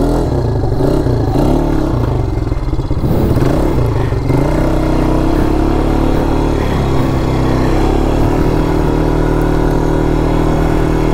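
The engine of a 200cc Polaris quad bike (ATV) runs under throttle as it is ridden along a dirt track. Its pitch rises and falls over the first few seconds, then holds steady.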